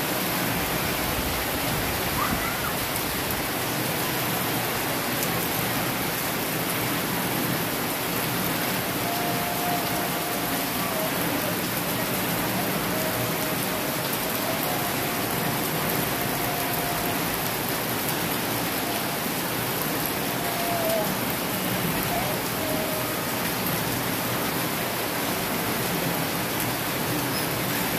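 Heavy rain pouring steadily, a dense even hiss of downpour.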